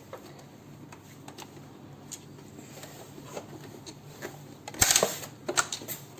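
Handling of a cardboard box and its foam packing insert: light scattered taps and rustles, then a louder burst of scraping about five seconds in, followed by a few sharp clicks.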